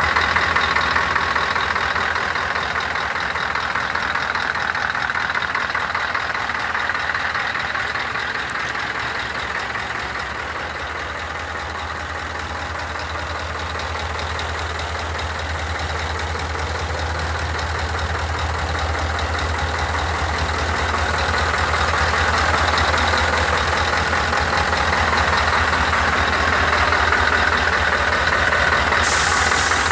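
Scania R164 480 truck's V8 diesel idling steadily, growing a little quieter and then louder again. A short hiss comes near the end.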